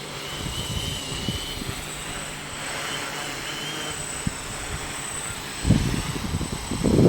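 Strong wind buffeting the microphone in gusts, loudest about six seconds in and at the end, over the steady high whine of a small remote-controlled aircraft's propellers.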